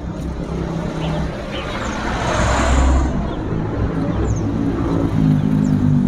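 A motor vehicle engine running close by. Its noise swells and fades about halfway through, and a steadier engine hum grows stronger near the end.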